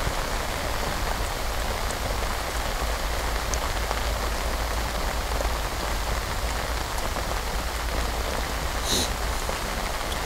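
Steady heavy rain falling on a lake's surface, an even hiss of drops, with a brief high sound about nine seconds in.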